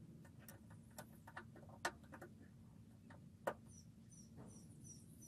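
Light metallic clicks and taps of hand tools and mirror mounting hardware being worked on a truck's sheet-metal fender, with two sharper knocks. In the last second and a half, a run of short, high chirps, about two a second.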